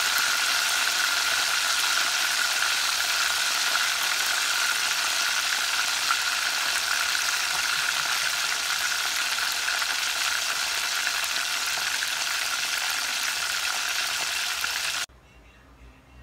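Whole tilapia deep-frying in hot oil, sizzling steadily, until the sound cuts off abruptly about a second before the end.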